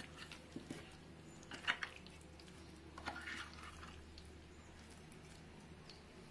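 A spoon stirring paneer cubes through a thick yogurt-and-spice marinade in a glass bowl: faint wet squelching with a few light scrapes of the spoon against the glass.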